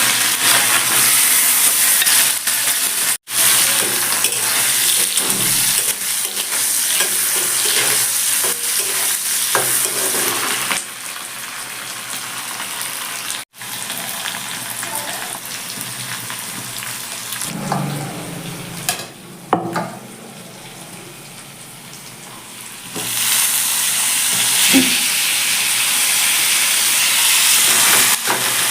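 Food sizzling as it fries in hot oil in a pan, with a few faint stirring knocks. The sizzle turns quieter about eleven seconds in and comes back louder a few seconds before the end, broken twice by a brief dropout.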